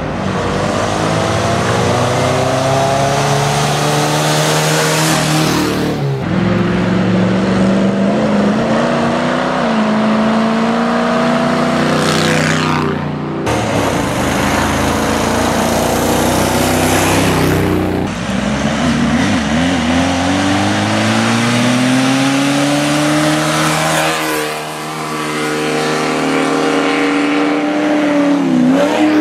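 Off-road race vehicles' engines revving hard as they run past, one after another. The engine pitch climbs and falls in several separate sweeps, with a sudden change every five or six seconds.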